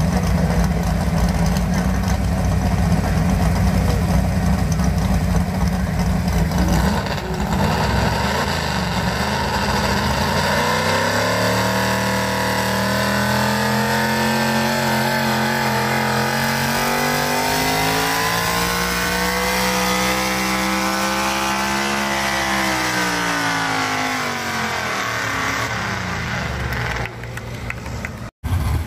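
Competition pulling tractor's engine, loud throughout. It runs steadily at a low note for about seven seconds, then its pitch climbs, holds high for roughly ten seconds, and winds back down. It cuts off abruptly near the end.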